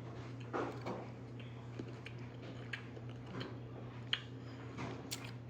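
Chewing a mouthful of Dubai chocolate bar with its crunchy kataifi-pastry filling: faint, irregular crunches and clicks, over a steady low hum.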